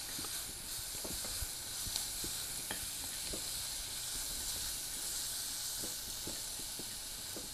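Sliced leeks sizzling steadily in hot oil in a clay pot, with faint scattered ticks of chopsticks stirring against the pot.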